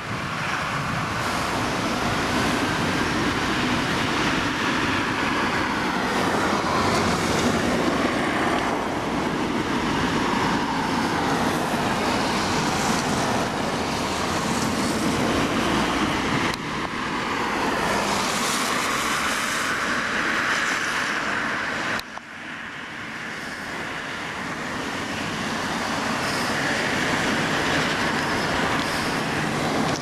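Road traffic passing on the adjacent road: a steady rush of tyre and engine noise that swells and fades as vehicles go by, dipping suddenly about two-thirds of the way through before building again.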